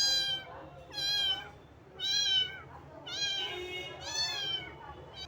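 Small kitten meowing repeatedly: five high-pitched meows, each about half a second long and about a second apart, each rising then falling in pitch.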